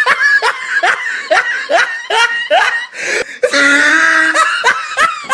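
A man laughing: a quick run of short rising 'ha' laughs, about two or three a second, then a long drawn-out laughing tone about three and a half seconds in.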